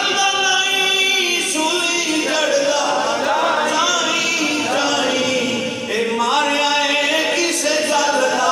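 A man's voice singing devotional verse unaccompanied into a microphone, in long held notes that waver and bend.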